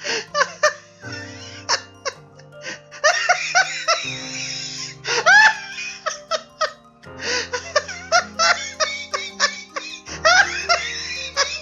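A baby laughing and giggling in repeated bursts over steady background music.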